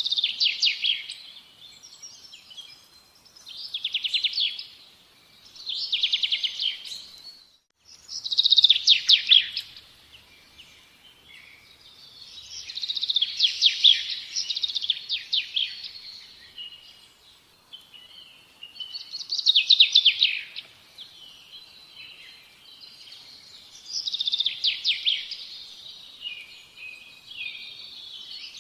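Songbirds singing in repeated phrases of rapid trilled chirps, one every few seconds, with a brief cut-out about eight seconds in.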